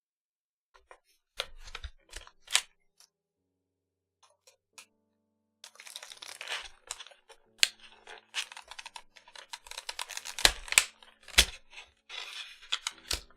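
Keyboard parts being handled and fitted during a custom 60% keyboard build: scattered sharp clicks and knocks with stretches of scraping and rustling, the loudest clicks near the end, over quiet piano music.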